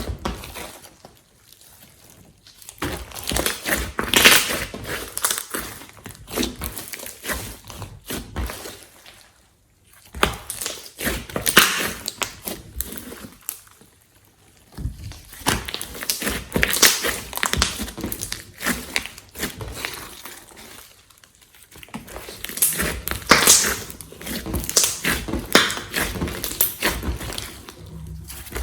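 Glossy slime being squeezed and mixed by hand, giving sticky crackling and popping in bursts of several seconds, with short pauses between.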